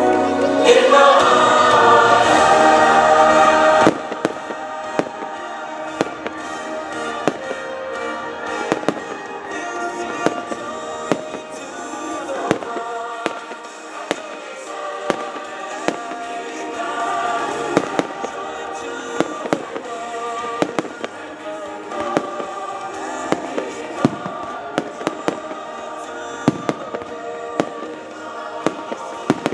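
Fireworks display: many sharp bangs and crackles from shells and ground fountains, several a second, over music. The music is loud for the first four seconds or so, then drops, and the firework reports stand out above it.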